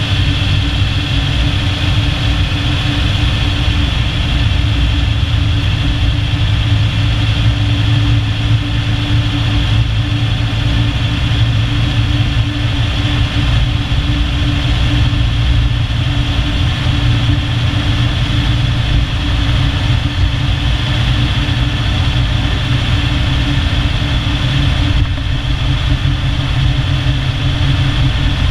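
Jeep Cherokee XJ driving on a paved road, heard from beneath its front bumper: a steady, loud low rumble of tyres and drivetrain with a constant hum.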